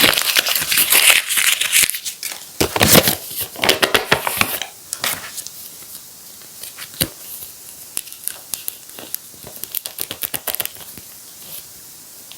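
Paper and tape crinkling and tearing as a handmade paper-surprise packet is opened. The crinkling is dense and loud for about the first five seconds, then thins out to scattered crinkles and clicks.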